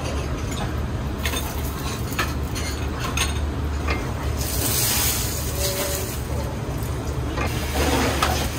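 Beaten egg sizzling in a hot, oiled rectangular tamagoyaki pan over a gas burner, in two hissing spells about halfway through and near the end, after a few light clinks of chopsticks and metal pans. A steady low hum runs underneath.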